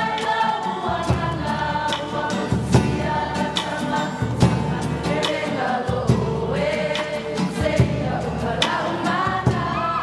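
A large group singing together in chorus, with drum beats struck at intervals through the song.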